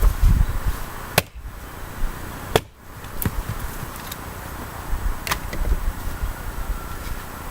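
Four sharp wooden knocks and cracks while firewood is cut by hand, over low rumbling handling noise.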